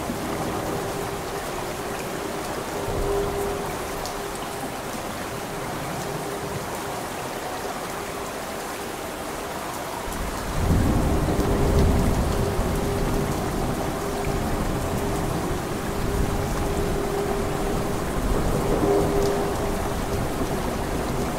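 Heavy rain falling steadily, with thunder rumbling low in the background. A deeper roll of thunder swells about halfway through and fades over a few seconds.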